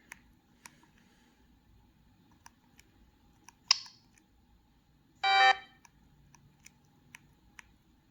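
Button clicks on a Sony Ericsson T226 phone as its ringtone list is scrolled, with short snatches of preloaded ringtones starting and cutting off: a brief high one about three and a half seconds in and a fuller one about five seconds in, each under half a second.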